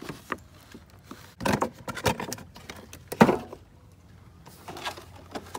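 Clear plastic toy packaging being handled: a few scattered rustling crackles and clicks, the loudest a sharp knock a little past three seconds in.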